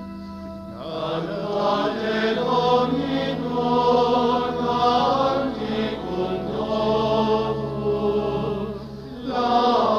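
Choir singing a slow liturgical chant with long held notes, coming in about a second in and dipping briefly near the end.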